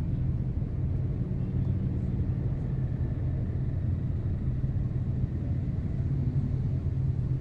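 Vehicle engine idling at a standstill: a steady low rumble.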